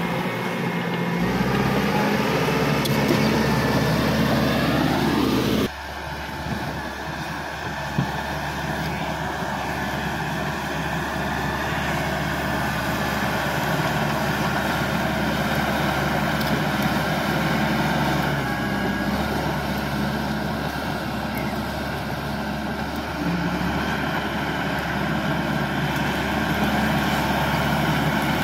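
Caterpillar D5K XL bulldozer's diesel engine working, its pitch rising over the first few seconds, then dropping abruptly to a lower, steady running note. A single sharp knock comes a couple of seconds after the drop.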